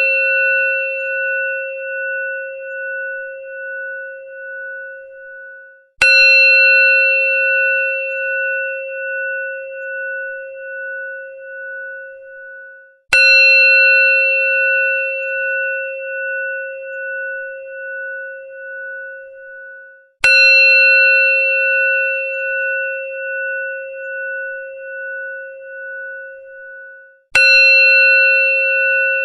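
Hindu temple bell struck four times, about seven seconds apart. Each stroke rings on as a steady tone that wavers and pulses as it slowly fades, until the next stroke.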